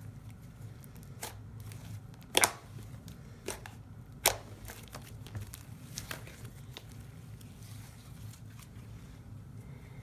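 Hands stretching and squishing a soft, fluffy cloud cream slime: quiet tearing and crinkling with a few sharp clicks, the loudest about two and a half seconds in, over a low steady hum.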